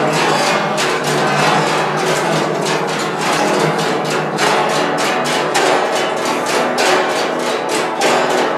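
An ensemble of five guzhengs (Chinese zithers) playing together: a dense stream of fast, sharply plucked notes.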